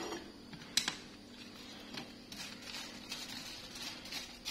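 Wooden chopsticks clicking and tapping in a plastic basket of fried potato strips: one sharp click about a second in, then soft scattered taps.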